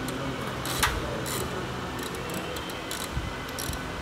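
Ratchet wrench with a size-10 socket clicking in short, irregular runs as the oil sump nuts on an automatic gearbox are undone.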